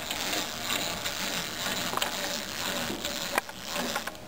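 Clockwork gear train of a wind-up toy dinosaur running as it walks across a wooden tabletop, a steady ratcheting buzz with a couple of sharper clicks about two and three and a half seconds in.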